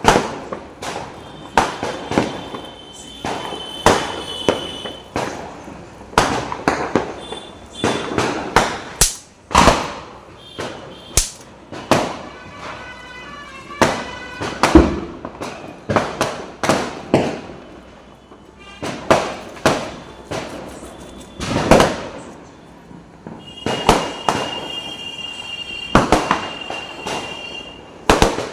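Firecrackers going off one after another, dozens of sharp bangs at irregular intervals, with a high steady tone at times.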